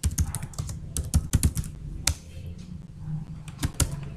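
Computer keyboard being typed on: a quick, irregular run of key clicks over a low steady hum.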